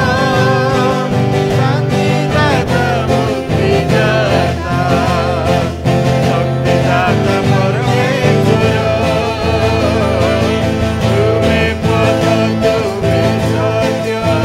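Odia Christian worship song sung by a man with a twelve-string acoustic guitar accompaniment, played without a break.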